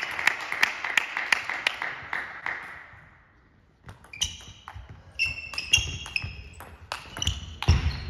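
A noisy haze with quick clicks dies away to near quiet about three seconds in. Then comes a table tennis rally: the plastic ball clicking off rackets and table, sports shoes squeaking on the hall floor, and a low thud near the end.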